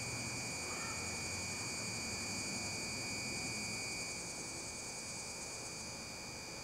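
Insects trilling steadily at a high pitch over a low outdoor background hum, a little quieter from about four seconds in.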